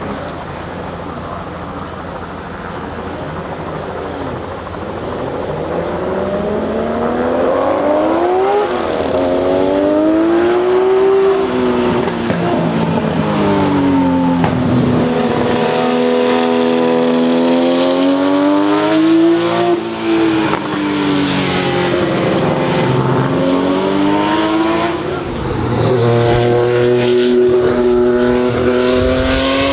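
Martini Porsche 935 race car's turbocharged flat-six running at the start line, then pulling away and accelerating hard, its revs climbing and dropping back several times through gear changes. Near the end a different car's engine is heard accelerating.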